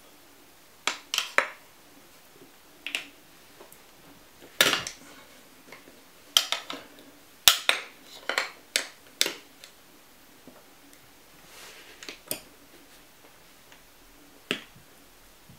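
Metal tyre levers clinking and clacking against each other and the wheel rim as they are worked between the rim and a solid electric-scooter tyre: about fifteen sharp, separate metallic clicks and knocks, irregularly spaced.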